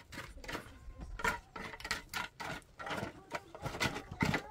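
Wooden board scraping and knocking over dry, stony earth as a dirt floor is levelled, in quick irregular strokes.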